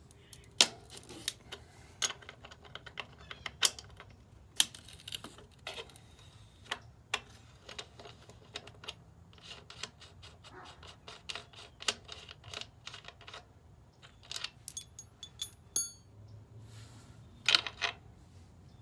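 Metal hand wrench from a motorcycle's stock toolkit working loose the rear axle nut: irregular sharp metallic clicks and clinks as the tool is turned and refitted on the nut. A few ringing metal clinks near the end.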